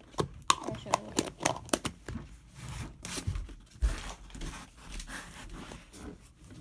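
Close handling noise from a plastic slime tub being closed and handled right by the microphone: a quick run of sharp clicks, then rustling with a couple of dull thumps about three and four seconds in.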